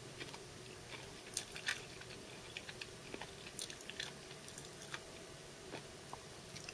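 A person chewing a Tirol espresso chocolate: faint, irregular crunching clicks. The crunch comes from what the taster believes are crushed coffee beans in the candy.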